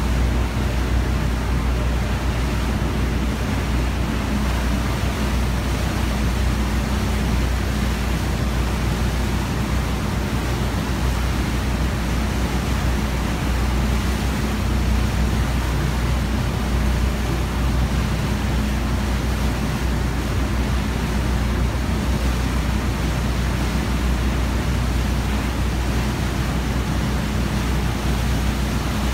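A motorboat's engine running steadily at cruising speed, a constant low drone, under the rushing noise of the churning wake water.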